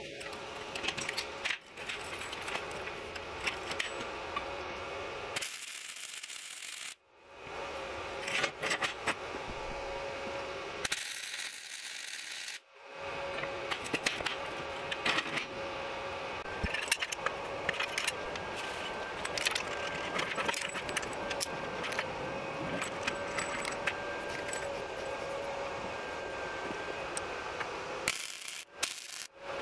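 Flux-core wire welder crackling and spitting as it lays welds on the steel leg bracket, in three long runs with short breaks between them.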